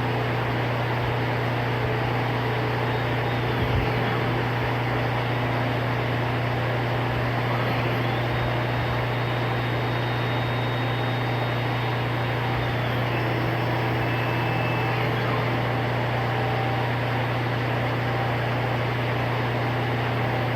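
CNC plasma table running a program with no torch attached: the gantry's stepper motors drive it along, giving faint whines that shift in pitch over a steady hum and hiss.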